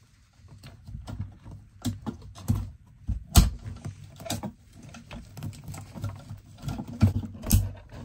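Gloved hands pushing plastic fuel hoses and wiring onto a fuel pump module: irregular plastic clicks, knocks and rustling, the loudest knock about three and a half seconds in and a few more near the end.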